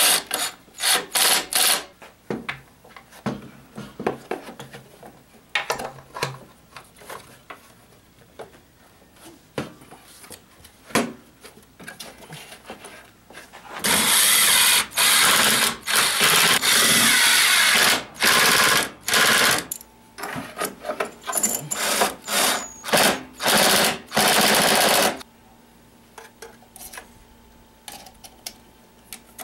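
Cordless 18-volt drill-driver driving bolts back in as the air-intake housing is reassembled. It runs in short bursts at the start, with clicks and knocks of parts being handled in between. Then comes one long run of about five seconds, followed by several more short bursts.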